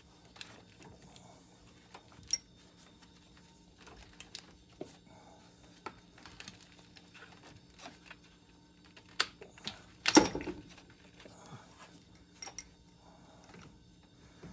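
Scattered clicks and clinks of hand tools and metal parts being handled on a car engine, with a louder clatter about ten seconds in.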